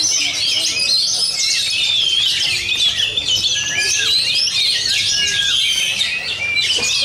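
Oriental magpie-robin (kacer) singing a loud, rapid, unbroken song of varied whistles, chirps and glides.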